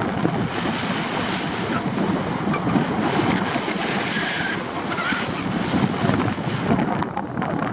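Airflow rushing over the microphone of a paraglider pilot's camera in flight: a loud, fluctuating wind noise.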